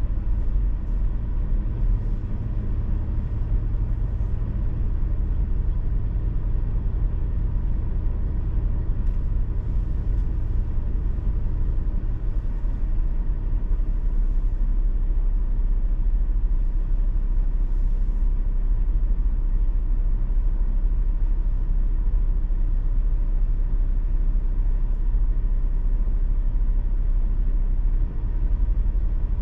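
Steady low rumble inside a car's cabin while it sits stopped at a traffic light, its engine idling.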